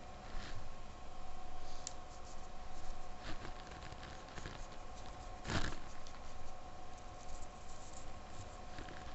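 Soft pastel stick scratching and rubbing on drawing paper in short, irregular strokes, with one louder scrape about five and a half seconds in. A faint steady hum runs underneath.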